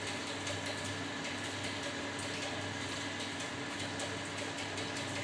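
Steady background hum and hiss, with faint soft ticking and squishing from hands mixing boiled soybean chunks with spices and egg.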